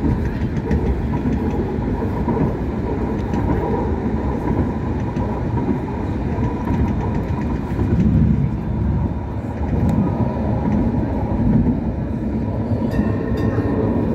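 Hong Kong Light Rail first-generation light rail vehicle running along the track, heard from inside the car: a steady rumble of wheels on rail with a thin steady tone above it. A higher tone joins near the end.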